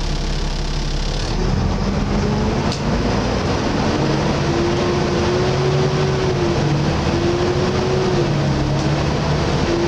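Volvo B7TL double-decker bus's six-cylinder diesel heard from on board. It idles, then about a second in pulls away and builds up under load, with a strong whine that wavers in pitch, the so-called 'hoover'.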